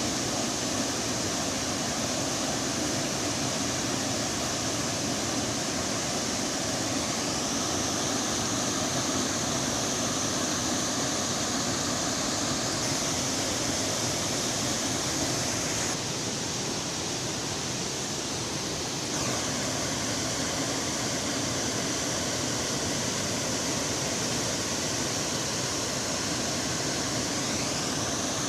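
Waterfall on the Camanducaia River running with high water volume: a steady rushing of falling water, briefly a little softer about two-thirds of the way through.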